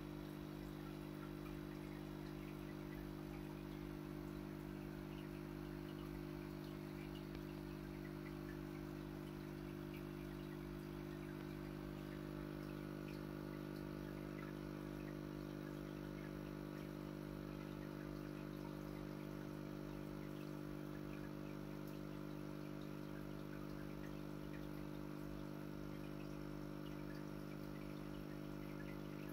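Aquarium filter motor running with a steady electrical hum, with faint scattered crackle on top.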